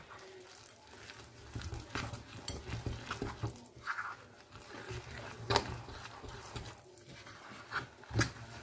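A metal utensil stirring and scraping thick cookie dough of oat flour, butter and chocolate chips in a glass bowl: soft, irregular scrapes, with a sharper clink against the glass about five and a half seconds in and again near the end.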